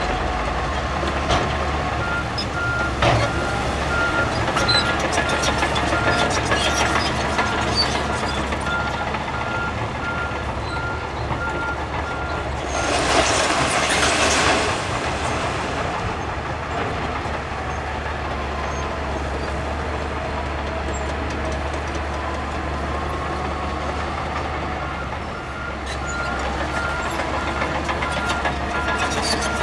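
Heavy earthmoving machinery running steadily, with a reversing alarm beeping in a rapid repeating pattern for the first several seconds and again near the end. About halfway through comes a loud hiss lasting about two seconds, and there are scattered knocks early on.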